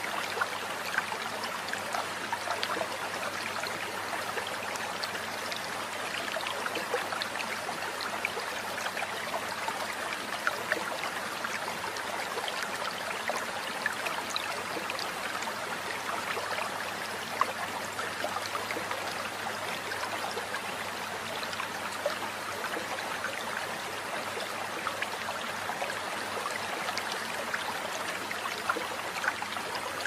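Flowing water, a steady babbling trickle with many small sharp ticks scattered through it.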